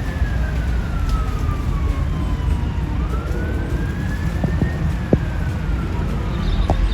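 An emergency vehicle siren on a slow wail, its pitch sliding slowly down, back up, and down again, heard faintly over a steady low rumble.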